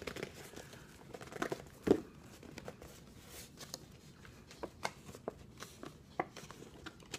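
A watch box and its packaging being handled and slid out of a tight sleeve: scattered light clicks and rustles, with one sharper knock about two seconds in.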